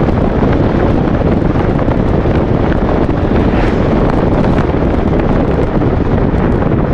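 Steady wind buffeting a microphone mounted on the outside of a moving Rover 220, with tyre and road noise underneath.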